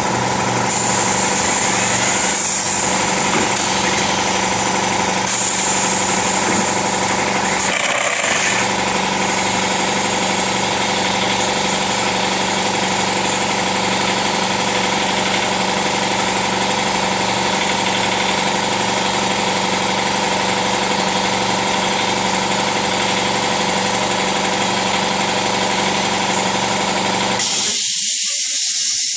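Shizuoka AN-S CNC knee mill running a program, its tool tracing circles on a cardboard sheet: a loud, steady machine drone with a steady hum and a high whine. Near the end the low hum cuts out and a high hiss takes over briefly.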